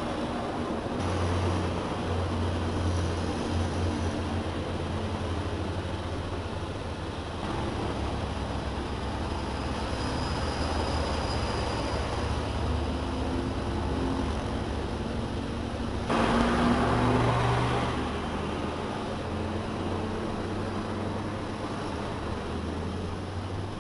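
Truck engine running under way with steady road and wind noise, heard from inside the cab while driving; a brief louder swell comes about two-thirds of the way through.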